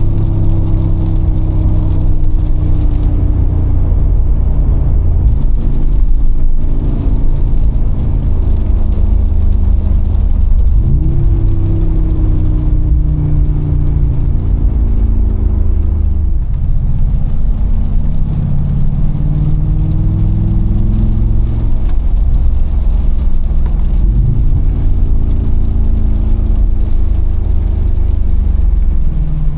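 Mercedes-AMG G63's 4.0-litre twin-turbo V8 under way, a deep engine note over road rumble. The engine pitch climbs quickly about three times, each time easing slowly back down.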